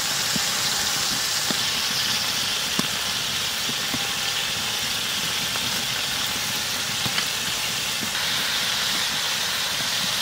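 Chicken tikka skewers sizzling in a little sunflower oil on a hot flat iron tawa: a steady frying hiss with a few scattered small pops and clicks.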